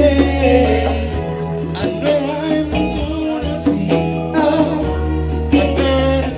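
Live band playing a groove: electric bass, congas and drum kit, with a voice singing over it.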